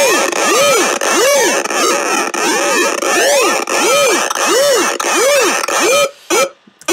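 Ableton Operator synth patch of square-wave oscillators, its pitch swept up and down by an LFO about one and a half times a second and bit-crushed by Redux set to hard, giving a harsh repeating wobble of the dubstep 'yeah yeah' kind. It stops about six seconds in, followed by two short stabs.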